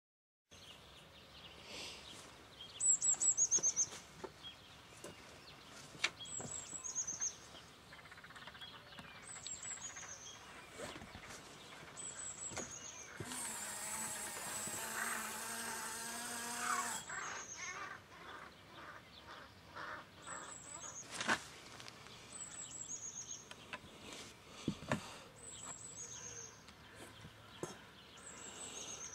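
Small birds chirping in short, repeated, descending phrases every few seconds. About halfway through, the model warning-sign trailer's small electric motor runs for about four seconds, a steady hum with a rising whine, as it folds the warning board up. A few sharp clicks.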